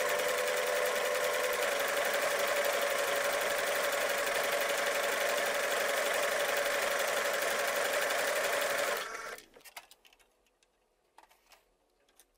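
Singer Starlet 6680 home sewing machine running steadily as it sews a decorative stretch stitch, then stopping about nine seconds in, followed by a few faint clicks.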